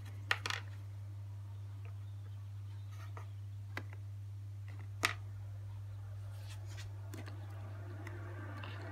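Steady low hum with a few short, light clicks and taps of small plastic toys being handled on a tabletop, the sharpest about five seconds in.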